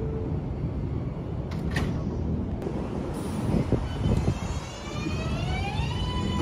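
New York City Subway 7 train rumbling in a station, with a brief sharp sound about two seconds in; about five seconds in a rising whine of the traction motors begins as the train starts to pull out, levelling off to a steady tone near the end.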